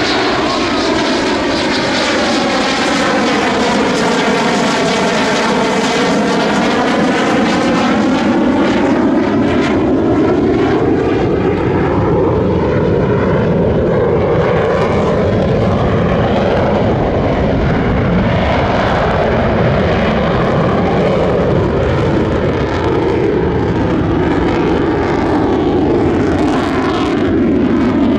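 Loud, steady jet noise from an F-16 fighter's General Electric F110 turbofan as the jet passes overhead and climbs away. Its tone sweeps down and back up over the first several seconds as it passes, and shifts again about two-thirds of the way through.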